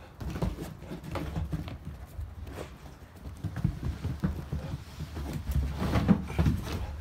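Springer spaniel detection dog searching close by, sniffing and scuffing its paws on a concrete step in irregular soft knocks and scrapes, over a low rumble of the phone being handled.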